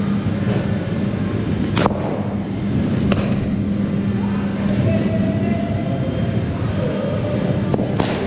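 Cricket bat striking balls: three sharp cracks, about two seconds in, about three seconds in, and near the end, over a steady low hum.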